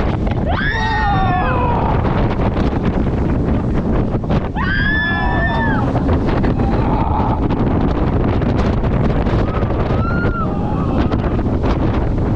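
Loud wind rushing over the microphone with the rumble of the Intamin mega coaster train running at speed. Riders scream over it twice, about half a second in and about four and a half seconds in, with a shorter yell around ten seconds.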